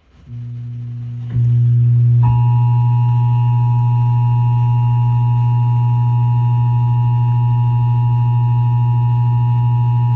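Emergency Alert System two-tone attention signal on an FM radio broadcast: two steady tones near 853 and 960 Hz sound together, starting about two seconds in, announcing a tornado warning. Under it is a loud, steady low hum that steps up in level just before the tones begin.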